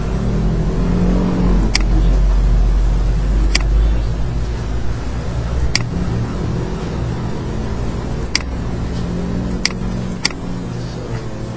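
Six sharp computer-mouse clicks, spaced unevenly, over a loud, steady low rumble.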